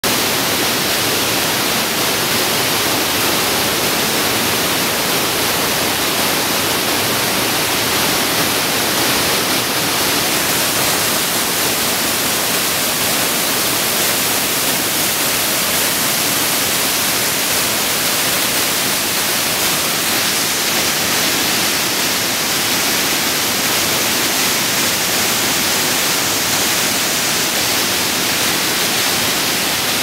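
Steady, loud rush of water from small cascading waterfalls, unbroken and hissy.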